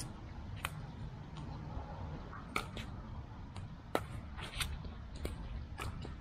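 Pickleball paddles hitting a plastic ball and the ball bouncing on the court during a rally: several sharp pops at uneven intervals, over a steady low rumble.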